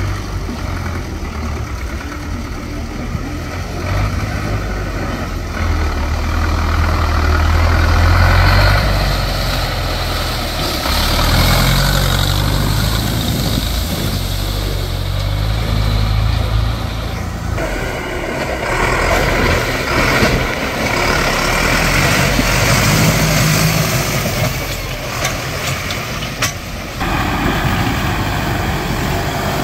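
Tractor engines working a muddy course, the engine note rising and falling under throttle, with abrupt changes where one tractor gives way to another. Near the end a red Zetor Forterra tractor ploughs through a mud pond, throwing up a wave of mud.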